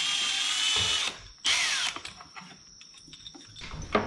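Cordless electric ratchet driving a bolt on the engine: a whining spin that stops about a second in, then a second short burst that winds down, followed by faint clicks.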